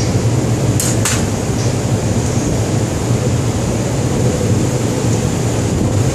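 Steady low hum of a ship's machinery, with two short sharp clatters about a second in.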